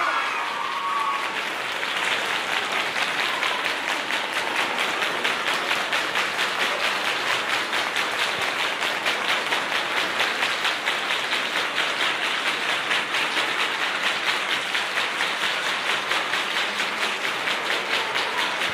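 A crowd clapping in a steady, even rhythm to cheer a man being honoured with a garland and shawl.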